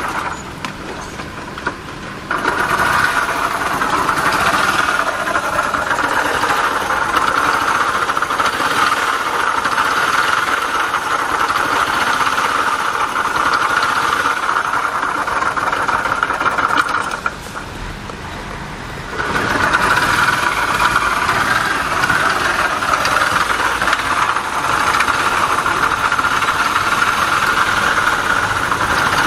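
Honda Little Cub's small air-cooled four-stroke single running, with a loud, steady high whine from the transmission, the title's 'seri' noise, put down to a failing bearing. The whine and overall loudness fall away for about two seconds past the middle, then come back.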